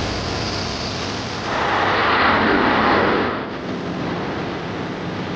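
HÜRJET jet trainer's single General Electric F404 turbofan engine running at take-off power, a rushing jet noise that swells louder for about two seconds in the middle, then drops back.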